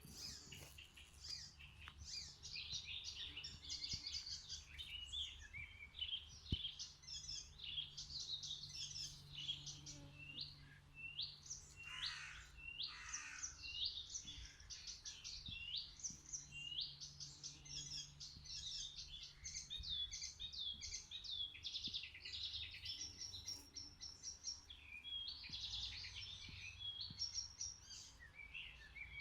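Several songbirds singing at once: a dense chorus of quick chirps, trills and short downward-sweeping notes, with a faint low steady hum underneath.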